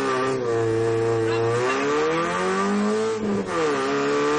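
Opel Astra GSi rally car's engine heard from inside the cabin under hard acceleration. The revs hold for a moment, then climb, drop briefly at a gear change about three seconds in, and climb again.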